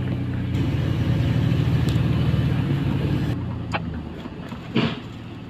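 Vehicle engine hum and road noise heard from inside a car's cabin while driving slowly, steady and low, easing off about three seconds in, with a couple of faint knocks near the end.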